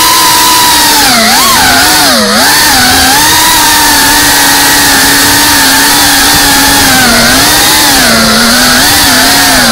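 FPV drone's electric motors and propellers whining at full loudness, the pitch dipping and rising repeatedly as the throttle is worked, with the deepest dip about two seconds in.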